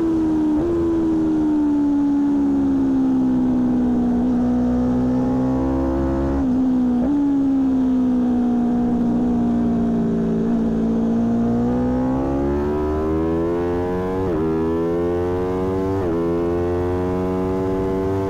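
Aprilia Tuono V4 1100 Factory's V4 engine heard from a fairing-mounted mic, slightly distorted. The engine note falls slowly as the bike slows, then climbs through the revs with two quick upshifts near the end, each a brief drop in pitch before it rises again.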